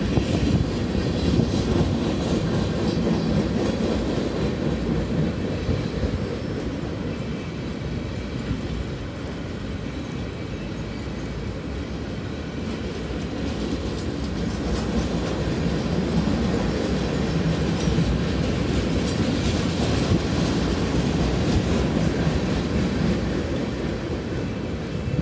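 Freight train flatcars rolling past on steel wheels: a steady rail rumble with many small knocks from the wheels, easing a little partway through and swelling again.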